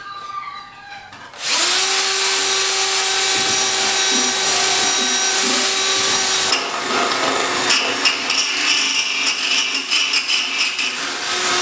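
Cordless drill with a wire-brush attachment starting up about a second and a half in and spinning with a steady whine. From about halfway it is pressed against the engine bay's sheet metal and rasps and chatters unevenly as it strips old seam sealer out of the seams.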